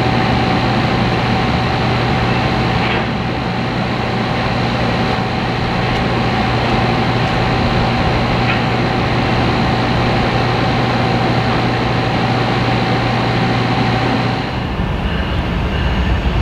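CSX freight train of open hopper cars rolling past, a steady rumble of wheels on rail with a steady whine held over it. The sound changes abruptly near the end.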